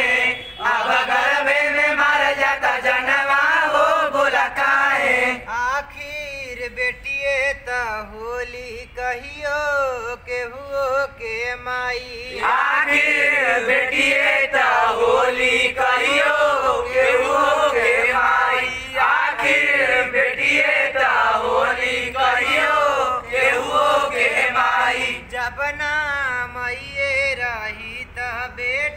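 Group of men chanting together in unison, a call repeated over and over, quieter for a few seconds in the first half before rising again.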